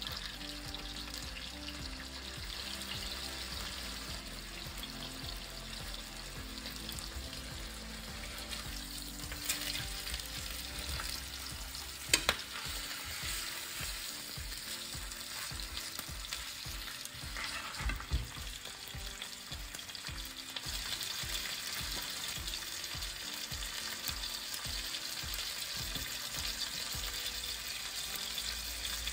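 Pork chops sizzling as they fry in olive oil in a nonstick frying pan, a steady hiss that gets louder about twenty seconds in. A few sharp clicks, the loudest about twelve seconds in and more around eighteen seconds, come from a fork against the chops and pan.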